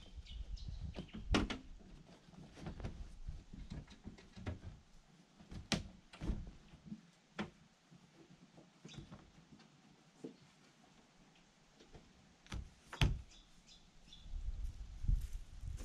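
Scattered knocks and thuds from an aluminium dinghy being handled and its canvas boat cover pulled over and fitted, with the loudest knocks about a second and a half in and about thirteen seconds in.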